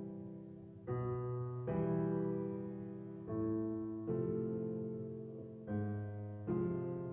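Background music: slow, gentle piano chords, a new one struck about every second and left to fade.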